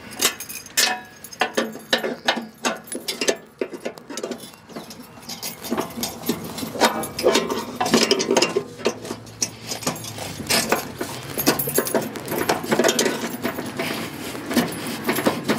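Clinking and rattling of steel hitch pins, lynch pins and their chains, with knocks of metal on metal, as an implement is pinned onto a tractor's three-point hitch lower link arms.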